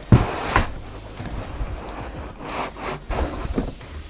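Cardboard box and packaging scraping and rustling as a monitor is pulled out of it, with two sharp knocks in the first second and further rubbing bursts later.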